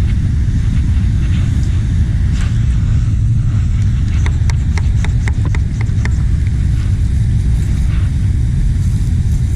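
A vehicle driving, heard from inside: a steady low rumble, with a quick run of light clicks or rattles around the middle.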